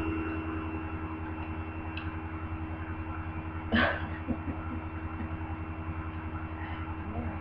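Steady low electrical or fan-like hum with a faint high tone over it. About four seconds in comes one short breathy burst, a woman's brief laugh, followed by a few faint small sounds.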